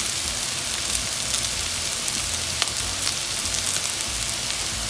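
Hot oil sizzling in a pan of sautéing onion and bitter gourd, a steady hiss with scattered small crackles.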